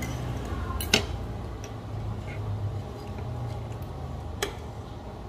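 Two sharp clicks of metal cutlery knocking against a plate, about three and a half seconds apart, over a low steady hum.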